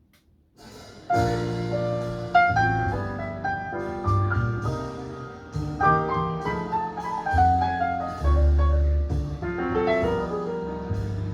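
Jazz recording played back through Spendor SP1 loudspeakers: a piano intro of chords and runs over deep bass notes. It starts softly about half a second in and comes in fully about a second in.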